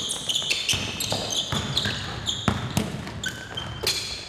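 A basketball being dribbled on a hardwood gym floor, with irregular sharp bounces. Sneakers squeak in short, high chirps several times as players run and cut.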